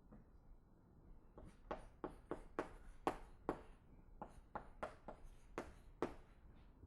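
Writing on a lecture board: a run of sharp taps and short strokes, about three a second, starting a second and a half in and stopping near the end.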